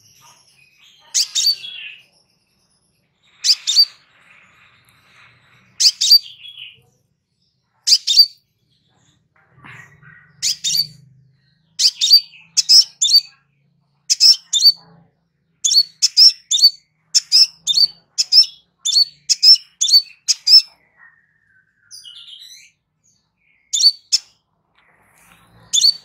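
Crimson sunbird calling: short, sharp, high-pitched chirps. They come a couple of seconds apart at first, then in a quicker run of about two a second through the middle, then pause before one last chirp near the end.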